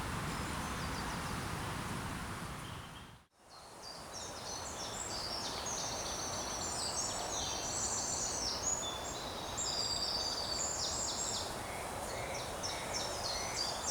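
Songbirds singing, many short high notes in quick phrases, over a steady hiss. About three seconds in, the sound dips briefly to silence before the birdsong begins.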